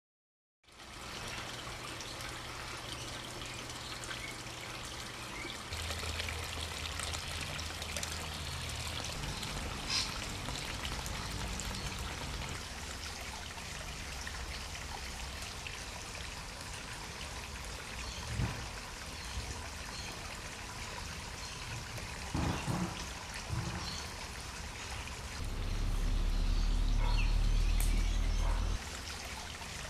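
Water steadily trickling and pouring over a small garden waterfall into a pond and creek. A louder low rumble comes in for about three seconds near the end.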